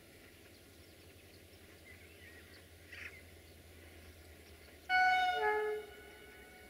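Horn of a CFR class 65 diesel locomotive (Electroputere LDE2100 rebuilt with a General Motors engine), heard from a distance: one chord-like blast of about a second, near the end, whose note steps down partway through.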